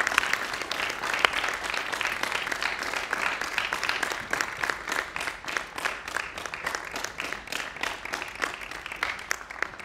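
Audience applauding, the clapping gradually thinning out and growing quieter toward the end.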